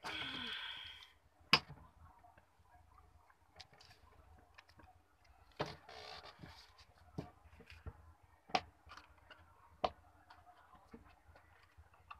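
A handful of sharp, isolated taps at irregular intervals, each very short, with a brief harsher sound lasting about a second at the very start.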